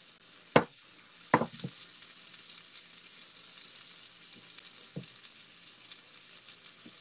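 Mahi mahi fillets sizzling and crackling steadily in hot butter and garlic in a skillet. A silicone spatula knocks sharply against the pan twice in the first second and a half as a fillet is flipped, and once more about five seconds in.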